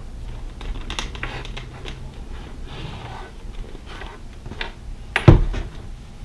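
Ruroc RG1-X helmet and goggles being handled while trying to fit them together: scattered small clicks and rustles, with one louder knock about five seconds in.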